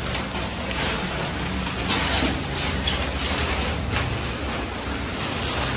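Plastic rain ponchos rustling and crinkling as they are pulled on and adjusted, a steady run of irregular rustles.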